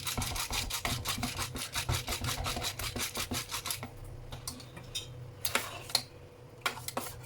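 Rapid rhythmic rubbing strokes of a kitchen utensil, about eight a second, that stop about four seconds in, followed by a few sharp clicks.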